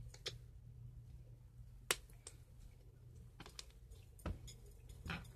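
Slime pressed and kneaded by hand on a wooden floor, giving a few scattered sharp clicks and pops, the loudest about two seconds in, over a low steady hum.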